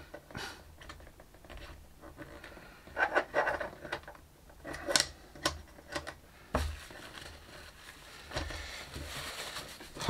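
Hands handling small 3D-printed plastic parts against a countertop: scattered light clicks, taps and scrapes as a glued piece is slotted into a handle, pressed and set down.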